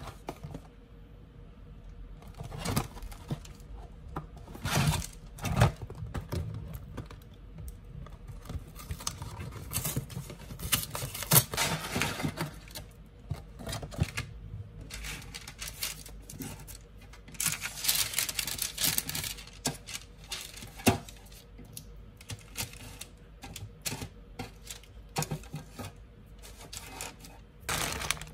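Handling food packaging on a kitchen counter: a cardboard box of frozen breaded fish fillets is opened and handled, and the hard fillets are laid one by one on a parchment-lined baking tray. Many scattered clacks and taps, with a few stretches of rustling.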